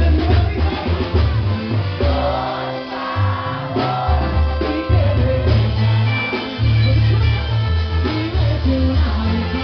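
A live Latin band playing loud through the stage sound system, with a strong bass line and a man singing into a microphone.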